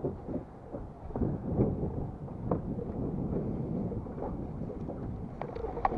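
Wind buffeting the microphone: a steady low rumble, with a few light clicks or knocks near the end.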